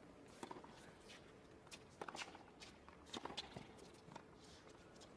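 Faint sounds of a tennis rally on a hard court: several sharp racket strikes on the ball, with the players' footsteps.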